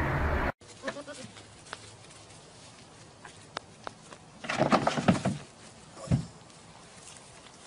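A steady rumbling noise cuts off abruptly about half a second in. After a few faint knocks, a goat bleats loudly about halfway through, with a shorter call a second later.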